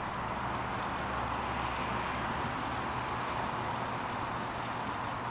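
WorldStove PupStove wood-gas stove burning wood pellets, its flame making a steady rushing roar with a low hum underneath.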